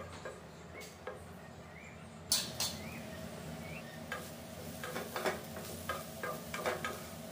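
A wooden spatula stirring diced vegetables in a nonstick frying pan: soft scrapes and knocks against the pan over a faint frying sizzle, the stirring growing busier after about two seconds.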